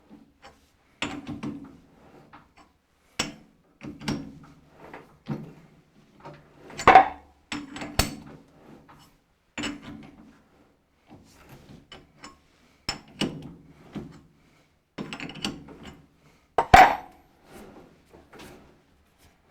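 Metal lathe chuck being turned by hand in neutral while a tap is fed into the work from the tailstock: irregular clicks, clunks and short rattles from the headstock gearing and chuck, with two louder clanks.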